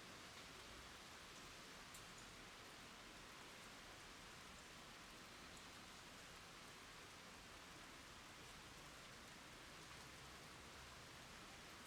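Rain falling on the ground and a water surface, faint and steady: an even hiss with a few soft drop ticks.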